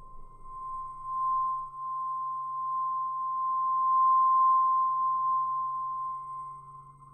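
Drone-like credits soundtrack: one steady, high pure tone held over a low hum, with a fainter tone pulsing softly beneath. It swells from about a second in and fades near the end.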